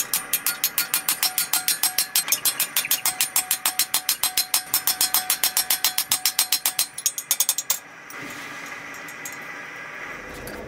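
Rapid, evenly spaced hammer blows, about six a second, on a punch or drift driven through a red-hot flat steel bar over a hole in a cast iron swage block, each blow ringing. The blows stop about eight seconds in, leaving a steady low background noise.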